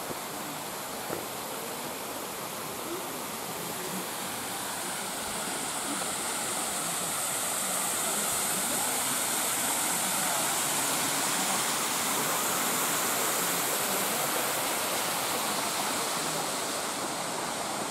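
Water pouring down a sloped stone cascade wall into a shallow pool: a steady rush that grows louder over the first several seconds and eases slightly near the end.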